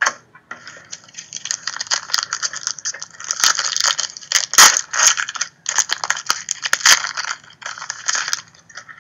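Foil trading-card pack wrapper crinkling and crackling as it is torn open by hand, with sharp clicks and a short pause partway through.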